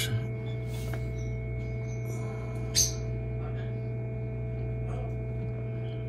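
Steady electric hum of a small tabletop egg incubator's fan and heater unit, on one low pitch with a few fainter higher tones. A single short, sharp sound breaks in near the three-second mark.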